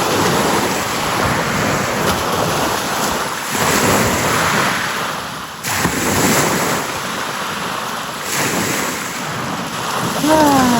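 Waves washing on a beach shore, swelling and easing, with wind buffeting the microphone. A short falling cry is heard near the end.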